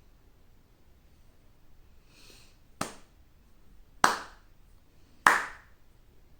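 Slow, evenly spaced hand claps, about a second and a quarter apart: three claps, with a fourth landing right at the end. They keep a slow four-beat pulse counted silently.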